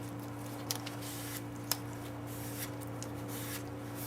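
Faint clicks and rubbing from hands handling small metal parts, with one sharper click near the middle, over a steady low electrical hum.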